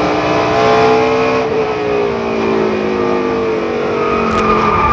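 On-board sound of a NASCAR Busch Series stock car's V8, its note falling steadily as the car slows. About four seconds in, a tire squeal comes in as the driver tries to turn the car on oil and the tires will not grip.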